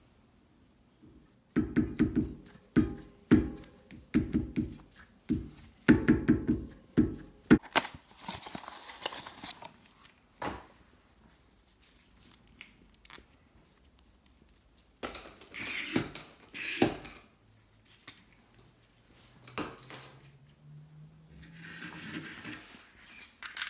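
Hands unpacking a latex inner tube from its cardboard box: a run of knocks and thumps over the first several seconds, then rustling and crinkling of the packaging as the tube is taken out.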